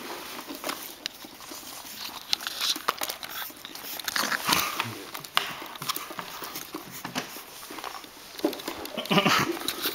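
Two Boston Terrier puppies scrambling on a hardwood floor, claws pattering and clicking, as they play-attack and mouth at a person, with louder scuffles about four and a half seconds in and again near the end.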